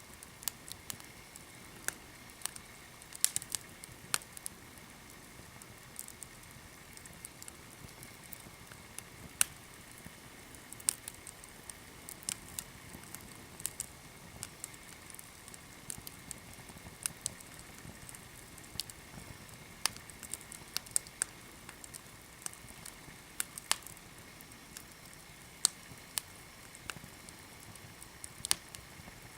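Small fire crackling in a mesh colander fire pit, with irregular sharp pops and snaps over a faint steady hiss.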